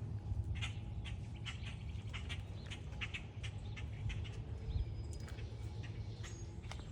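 Small birds chirping in short repeated calls, with a few thin whistled notes in the second half, over a steady low rumble.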